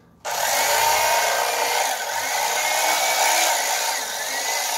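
Electric fillet knife switching on about a quarter second in and running steadily, its reciprocating serrated blades cutting into a jack behind the head. The motor's pitch dips briefly a couple of times.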